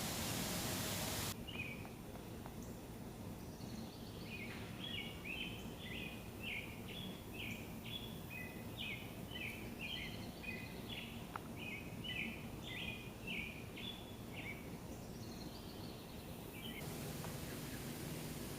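A small bird sings a long, quick run of short chirping notes for about ten seconds over quiet outdoor ambience. A steady hiss fills the first second and the last two seconds.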